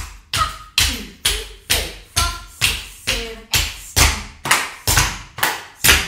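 Tap shoes striking a tiled floor in an even beat of about two strikes a second, each a sharp click with a short ring. These are two dancers working through basic tap drills together.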